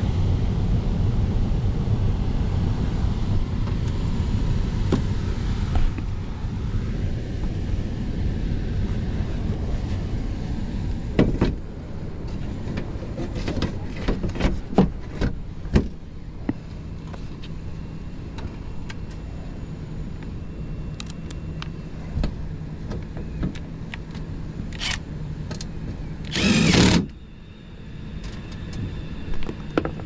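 Carrier heat pump air handler's blower running with a steady low rumble, heavier for the first ten seconds or so. A cluster of clicks and knocks from hands working on the cabinet comes midway, and a brief loud rush of noise about three seconds before the end.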